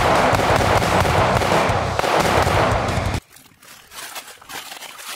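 AR-15 rifle fired in a rapid, unbroken string of shots, stopping abruptly about three seconds in.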